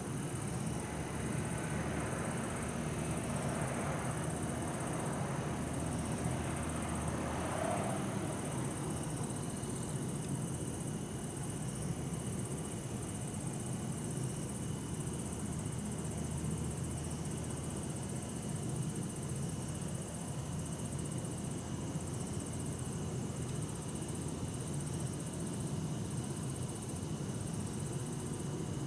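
Bell crickets (suzumushi) trilling steadily over a constant low hum of distant city traffic. In the first eight seconds or so a passing vehicle swells and fades.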